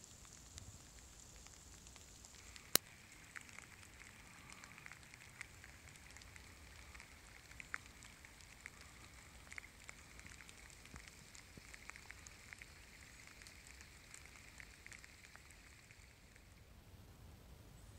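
Faint crackling and light ticking of footsteps over dry twigs and forest litter, with one sharp click about three seconds in.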